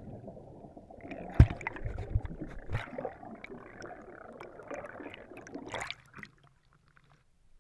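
Muffled underwater sound of a plunge, heard through a submerged camera: fizzing and crackling bubbles with small pops. A burst of water sound comes as the camera breaks the surface, just before six seconds in, and then it cuts off suddenly.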